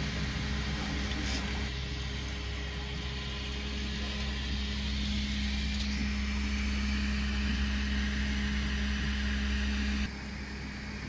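Bambu Lab A1 Mini 3D printer running a print, its motors and fans making a steady hum with a constant low tone. The hum drops off abruptly about ten seconds in.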